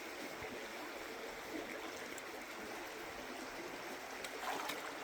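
Shallow, sandy-bottomed river running steadily around a person wading across it, with a slightly louder stir of water near the end.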